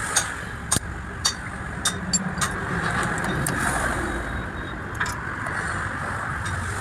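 Sharp metallic clicks and taps, about two a second for the first two and a half seconds and once more near five seconds in, as pliers and a screwdriver work on the steel yoke and cross of a truck propeller shaft's universal joint. Steady vehicle noise runs underneath and swells in the middle.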